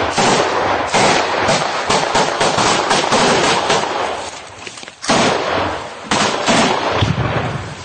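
Close, heavy gunfire: rapid shots in quick succession that thin out about four seconds in, then two more loud bursts of shots around five and six seconds in.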